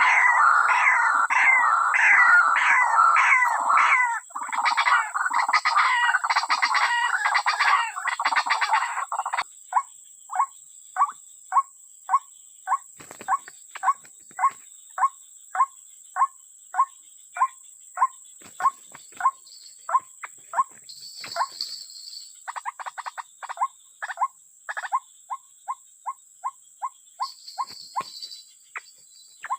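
Outdoor animal calls: a dense chorus of chattering calls for about nine seconds, then a regular series of short single notes, about two a second, over a steady high-pitched insect-like hum.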